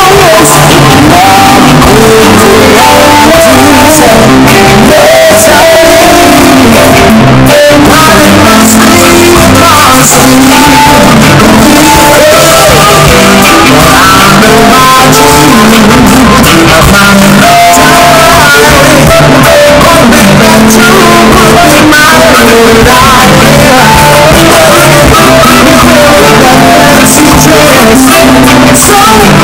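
Live reggae band playing, with a sung lead vocal over electric guitars, bass guitar, keyboards and drums.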